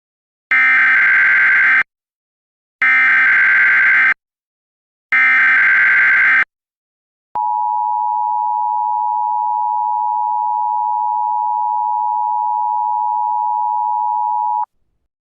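Emergency Alert System SAME header: three bursts of digital data tones, each a little over a second long and evenly spaced. They are followed by the EAS two-tone attention signal, a steady dual tone held for about seven seconds before it cuts off.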